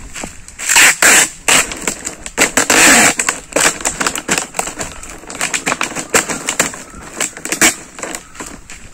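Empty plastic water bottles crinkling and knocking as they are pressed together and bound with cellotape, with two longer rasps of tape being pulled off the roll, about a second in and near three seconds, then a run of short crackles as the bottles are handled.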